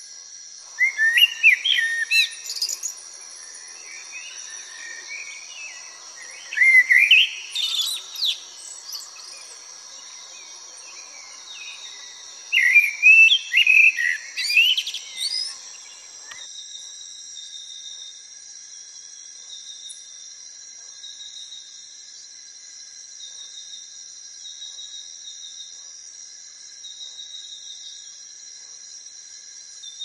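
Three song phrases of a Eurasian blackbird, each a couple of seconds of warbled whistles rising into a high twitter, over a steady high insect hiss. After the third phrase only a steady pulsing insect trill remains.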